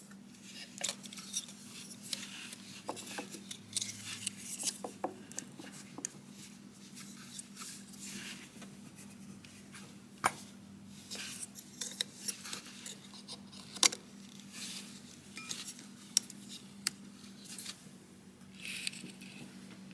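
Scattered light metallic clinks and clicks of hand tools and ignition coil packs being fitted onto a car engine, over a steady low hum.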